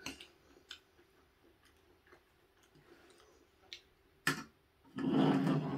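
Faint scattered clicks and taps, with one sharper click about four seconds in, then a short voiced sound like a brief hum near the end.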